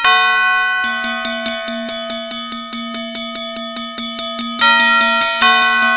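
Bells ringing together: a large bell is struck and left ringing, then struck twice more near the end, while a smaller bell rings rapidly and evenly, about four strokes a second, from about a second in.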